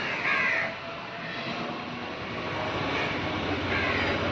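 Steady mechanical rumble of a passing motor vehicle, running on without a break.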